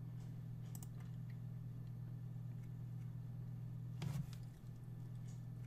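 Steady low electrical hum, with a faint click near the start and a sharper single click about four seconds in.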